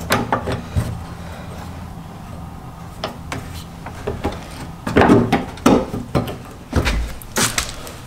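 Clicks and clunks of a Volkswagen Mk2 GTI door handle and latch being worked by hand, testing a newly fitted Porsche-script handle, with a heavier thud near the end.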